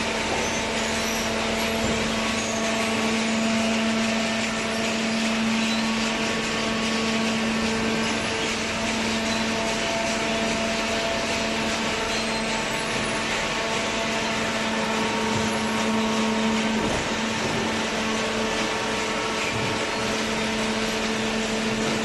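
A horizontal cardboard baler and its feed conveyor running: a steady mechanical hum with a constant low drone and no distinct strokes or knocks.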